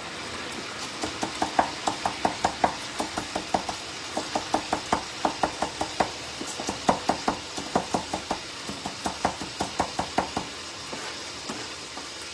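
Large kitchen knife chopping parsley on a wooden cutting board: runs of quick knocks, about four or five a second, broken by short pauses. A pan of oil sizzles steadily underneath.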